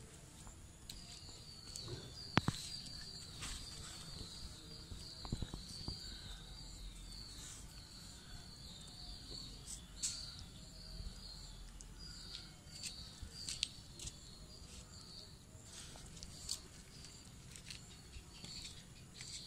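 A continuous high, wavering chirp starts about a second in and keeps going, with scattered light clicks and taps over it.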